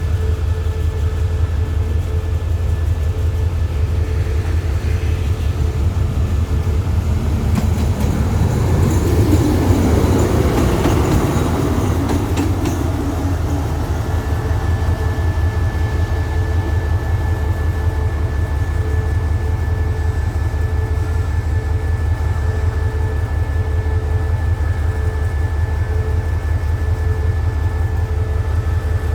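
Diesel train engine running steadily with a fast, even low throb. About eight to thirteen seconds in, a passing train on the other track adds a swell of rushing noise that peaks and fades.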